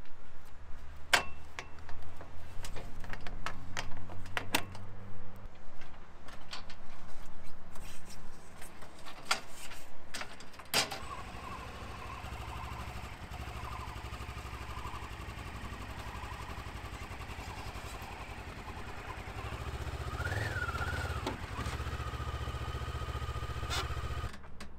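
Sharp metal clinks and knocks from a padlock and steel hinge on a folding angle-iron wheel chock. Then, about eleven seconds in, a Kawasaki motorcycle engine starts and idles steadily, swelling briefly under throttle as the bike is brought up a loading ramp.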